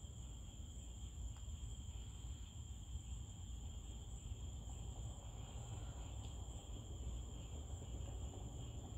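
Night insects trilling without a break at two high, steady pitches, over a low rumble.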